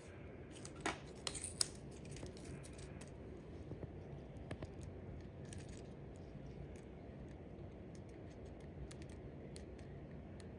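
A few sharp clicks of small metal tools being handled about a second in, then faint scratches and ticks of a ballpoint pen writing on a plastic plant label, over a steady low hum.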